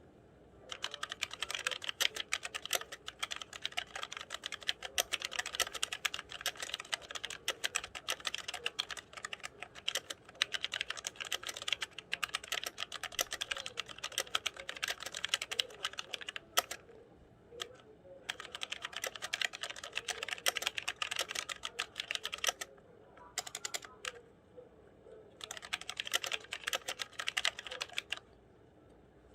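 Fast typing on a Logitech G413 mechanical keyboard with Romer-G tactile switches. Rapid key clicks come in several long runs broken by short pauses.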